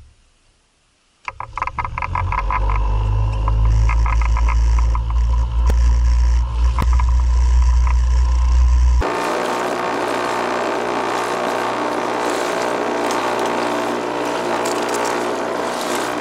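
Fishing kayak under way. After a near-silent first second, a steady low rumble with fast regular ticking from its drive sets in. About nine seconds in, this gives way to a steady rush of water spraying off the hull.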